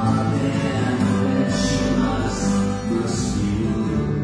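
Live acoustic band playing a slow song on piano, acoustic guitar, cello and double bass, with little or no singing.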